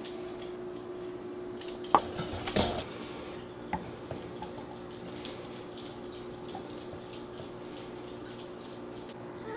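Dachshund puppies and their mother stirring in a wire pen: a sharp knock about two seconds in, a short cluster of small dog noises just after it, and a few light ticks, over a steady low hum.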